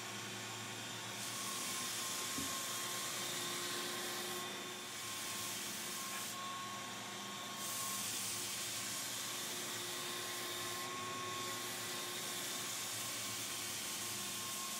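Belt floor sander running steadily with a Norton Red Heat 100-grit ceramic belt sanding a hardwood floor. A higher sanding hiss comes and goes several times over the steady motor hum.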